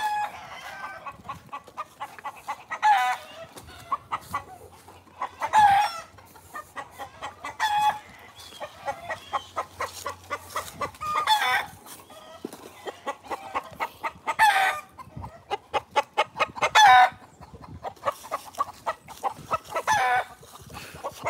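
Chickens cackling: runs of quick clucks broken every few seconds by a louder, longer, falling call.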